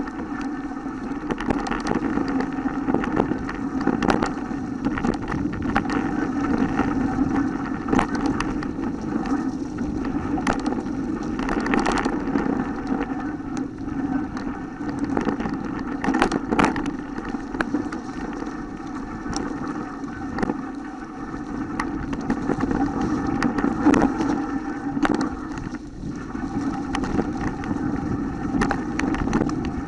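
Mountain bike rolling downhill over a rough, leaf-covered forest trail: a steady rumble and rattle from the bike on the uneven ground, broken by frequent sharp knocks over bumps.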